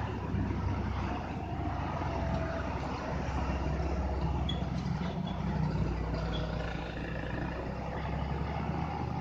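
Diesel engines of heavy trucks, including a Hino, running slowly through a tight bend: a steady, low engine drone that shifts a little in pitch about halfway through.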